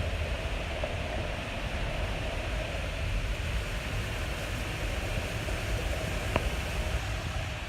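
Rain falling steadily, an even hiss with no let-up, with a single short click about six seconds in.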